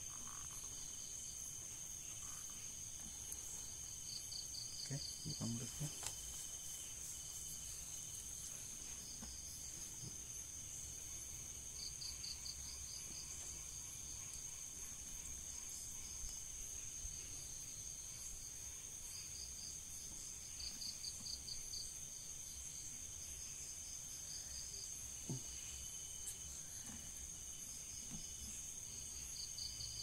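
Night insects: crickets giving short pulsed trills that recur every few seconds over a steady high-pitched drone, with a couple of soft knocks from handling.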